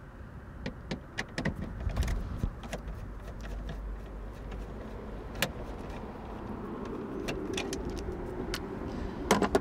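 Irregular small clicks, ticks and knocks of hand tools and plastic dashboard trim being worked on while the screws behind the trim are taken out.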